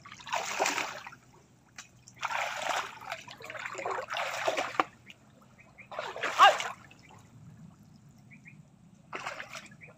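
Shallow muddy water splashing and trickling in several short bursts, from someone wading through the shallows and working in the water with a plastic basin and bare hands. The loudest splash comes about six and a half seconds in.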